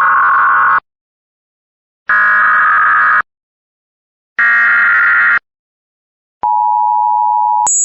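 Emergency Alert System SAME header: three harsh digital data bursts of about a second each, with second-long gaps. These are followed by the two-tone EAS attention signal, which jumps abruptly to a much higher pitch near the end.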